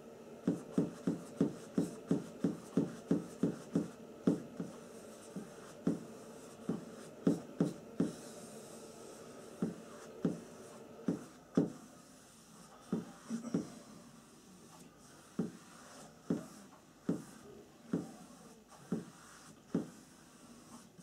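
Paintbrush stroking paint onto a stretched canvas in quick back-and-forth strokes, about three a second at first, then slower and more spaced out, about one a second.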